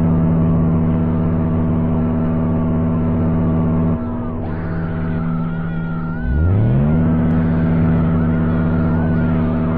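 Emergency alert alarm audio: a loud, steady low drone of several stacked tones. About four seconds in it drops away briefly, then slides up in pitch from very low back to the same drone, with a fainter wavering higher tone over it.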